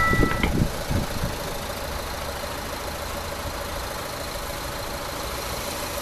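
A level-crossing warning bell's two-tone electronic chime cuts off about half a second in as the signal clears after the train, leaving a car engine idling steadily.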